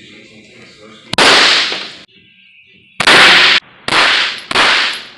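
Four gunshots, each a sharp crack with a short echoing tail: one about a second in, then three close together near the end.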